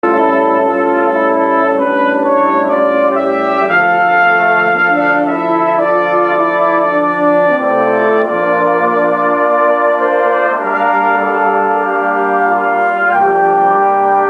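Brass band of cornets, trombones, euphoniums and tubas playing slow, held chords that change every second or two.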